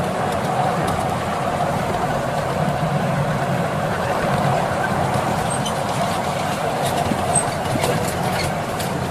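7¼-inch gauge miniature train running steadily, hauled by a Class 47-style locomotive, with wheels rolling on the rails. A few light clicks come in the last couple of seconds.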